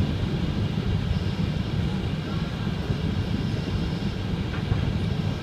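SNCF TER regional train running along the line at speed, heard from inside the carriage: a steady low rumble of wheels on rails and running gear.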